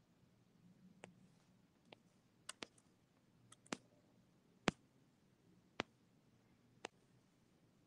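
Sharp single clicks over near silence, a few irregular ones at first and then about one a second.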